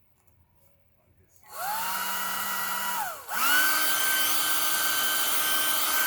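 A hair dryer switched on about a second and a half in: its motor whine rises to a steady pitch over a rush of air, winds down briefly, then starts again and runs steady at a higher speed. It is warming a tight screw so it will unscrew more easily.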